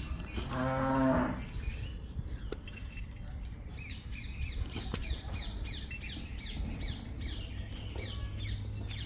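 A dairy bovine moos once, briefly, about half a second in. Small birds chirp throughout with quick, repeated falling notes.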